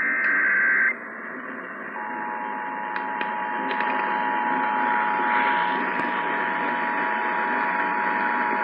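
Emergency Alert System broadcast over the radio: the end of a SAME digital header burst, a brief shrill warbling data tone, then about a second of static, then the EAS two-tone attention signal (853 and 960 Hz together) starting about two seconds in and holding steady over radio hiss. It is the signal that an emergency alert is about to be read.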